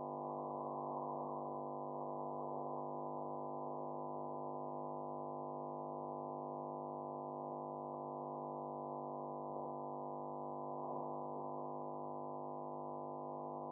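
Steady hum made of several held tones, unchanging throughout, with no sewing machine stitching.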